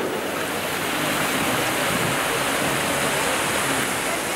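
Fountain jets and water cascading down a long steel water wall: a steady splashing rush of falling water.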